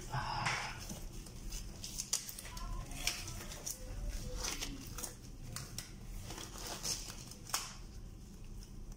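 Thin disposable gloves being pulled from their box and worked onto both hands: an irregular run of short rustles, crinkles and snaps.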